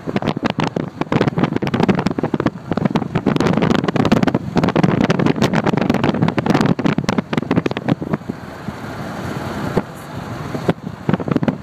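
Road and engine noise of a moving vehicle, heard from inside the vehicle, with dense crackling and knocking over it. The crackling eases about eight seconds in, leaving a steadier rush for a couple of seconds, then comes back near the end.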